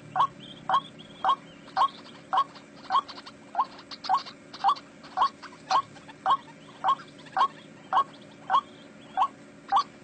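White-breasted waterhen (ruak-ruak) calling: one short rising note repeated steadily, about two a second, the call used to lure the birds to snares.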